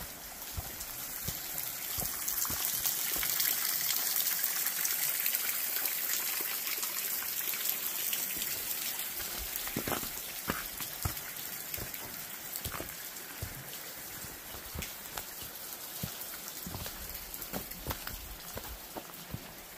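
Rushing creek water running in good flow: a steady hiss that swells over the first few seconds and then slowly eases off. Scattered footsteps on the trail are heard through the second half.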